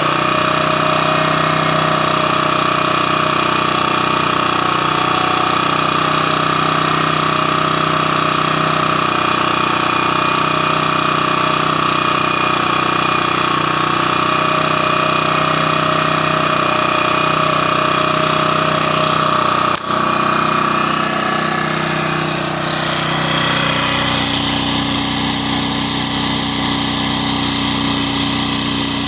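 Champion 1800/1400-watt portable generator's engine running steadily after sitting eight months. About 20 s in there is a brief click, and over the next few seconds the engine note shifts and settles at a different tone.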